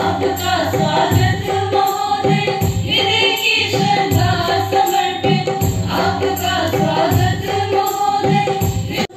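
A group of women singing a song together into microphones, amplified, over a steady low beat.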